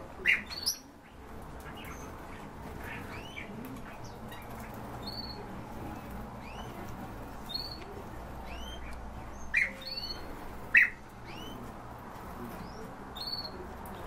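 A room of small caged birds chirping and calling, with short rising calls repeating every second or so. Loud sharp calls stand out twice right at the start and twice around the ten-second mark.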